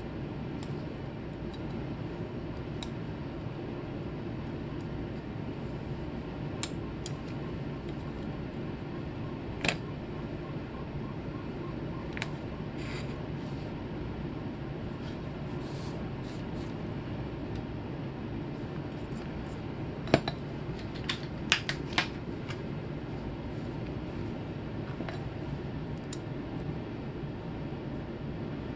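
Small sharp clicks and taps of a soldering iron and hand tools against a circuit board over a steady low hum. A cluster of four louder clicks comes about twenty seconds in.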